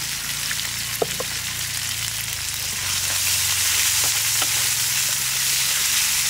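Chicken strips with garlic and ginger sizzling in hot oil in a nonstick frying pan, stirred with a wooden spatula, which gives a few light taps and scrapes. The sizzle grows louder about three seconds in.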